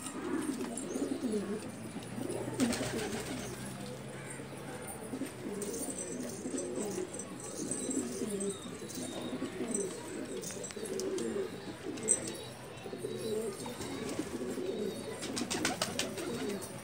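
Several domestic pigeons cooing continuously, their low, wavering coos overlapping. Brief clicking sounds come about two and a half seconds in and again near the end.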